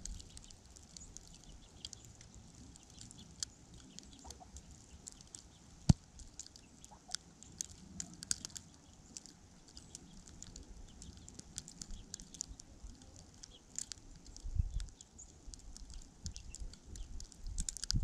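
Faint winter-storm ambience: icy snow ticking irregularly around the microphone, with one sharper click about six seconds in and a low gust of wind buffeting the microphone near the end.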